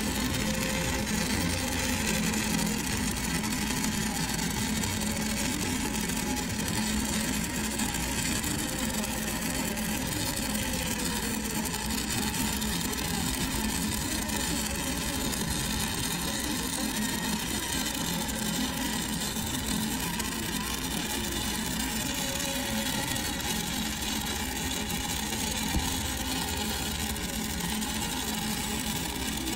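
Stick-welding arc of a 5/32-inch E6010 electrode running a bead on steel pipe, burning steady and unbroken.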